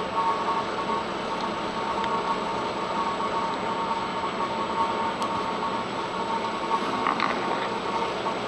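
Scroll saw running steadily, its reciprocating blade cutting a wooden puzzle board, giving a continuous buzzing hum with a steady high tone over it.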